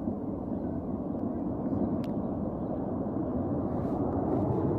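Avalanche rumbling down the mountainside: a steady low roar that grows slightly louder, with a single click about two seconds in.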